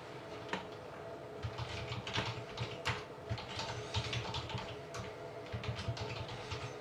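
Typing on a computer keyboard: quick, irregular key clicks, entering a short list of entries into a randomizer.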